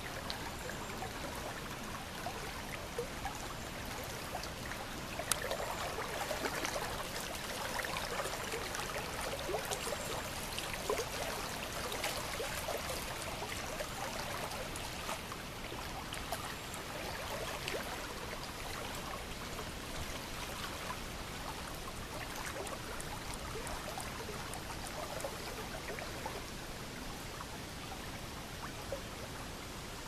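Shallow river water running and rippling, with many small trickling and splashing sounds, a little louder and busier for several seconds in the middle.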